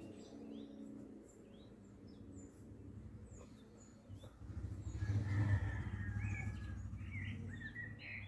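Birds chirping in the background, many short high calls throughout. Under them a low hum swells about five seconds in and then fades.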